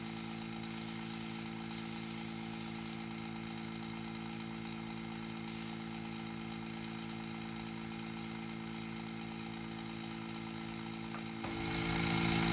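Electric vacuum pump running with a steady hum while it pulls vacuum on silicone to draw out the bubbles. It grows louder about eleven seconds in. Over it, an aerosol can of mold release sprays in three short hissing bursts in the first three seconds and once more about six seconds in.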